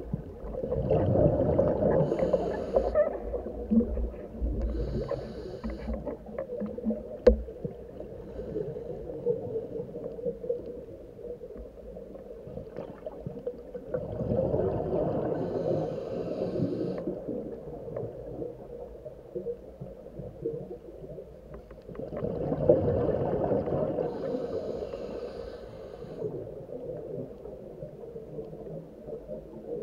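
Scuba diver breathing through a regulator underwater: three long rushes of exhaled bubbles about eight seconds apart, with a low bubbling bed and scattered sharp clicks between them.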